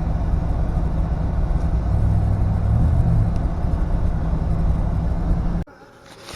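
Pickup truck driving on a rough dirt road, heard from inside the cab: steady low engine and road rumble. It cuts off abruptly near the end, leaving quiet with a few faint clicks.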